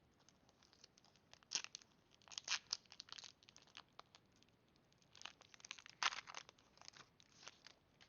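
Foil wrapper of a Pokémon trading card booster pack being torn open and crinkled, in bursts of crackling rustles: one about a second and a half in, then a run over the next two seconds, and again from about five seconds in.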